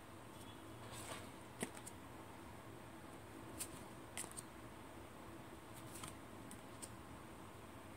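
Paper tarot cards being moved one by one from the front of a hand-held deck to the back, giving a handful of faint, sharp card clicks and slides.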